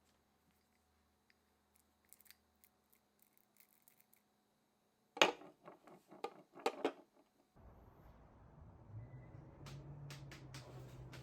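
Sharp metallic clicks and clatter of parts being handled, then a small electric motor switches on about two-thirds of the way in and runs with a steady low hum.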